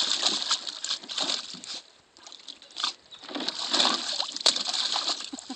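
German Shepherd puppy splashing and sloshing water in a plastic kiddie pool, in irregular bursts, with a short lull about two seconds in before the splashing picks up again.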